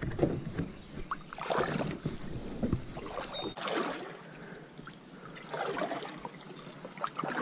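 Kayak paddle strokes: the blades dip and pull through lake water in a swishing splash about every two seconds.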